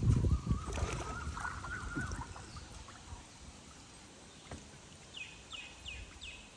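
Water splashing and knocking against the hull of a dugout canoe as a fishing net line is reached for and hauled up out of the river, loudest in the first second or two, then dying down to quiet lapping.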